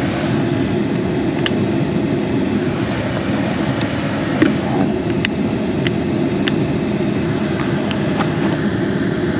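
A steady, even drone, strongest in the low range, with a few light, sharp clicks scattered through.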